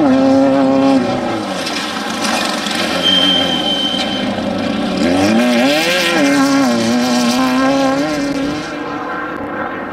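Off-road desert race vehicle's engine running at high revs, its pitch dropping and climbing again with throttle and gear changes, with a loud rush of noise about six seconds in.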